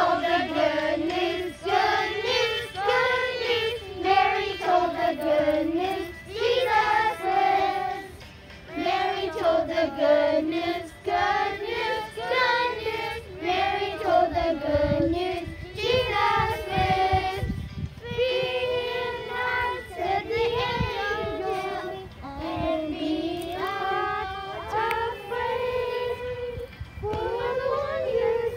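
Children's choir singing together, phrase after phrase of a melody.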